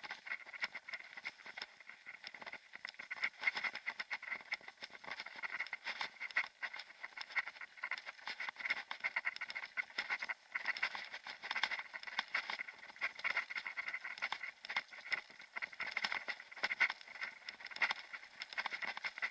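Mountain bike rolling fast along a gravel forest track: tyres crunching over the stones and the bike rattling over the bumps in a dense, uneven clatter.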